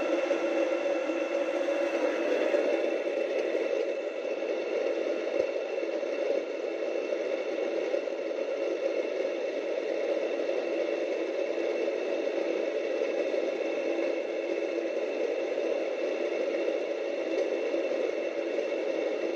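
Electric home flour mill (atta chakki) running steadily, grinding wheat grain into flour: a continuous hum over a dense grinding noise, a little quieter after about four seconds.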